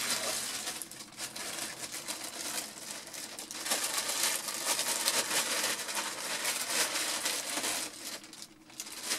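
A plastic bag rustling and crinkling as it is handled, a dense crackle that eases off about eight seconds in.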